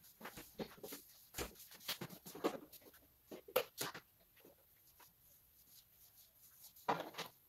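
Paintbrush scrubbing against a wall in quick, irregular strokes, going quiet for a few seconds in the middle while the brush is reloaded, then brushing again near the end.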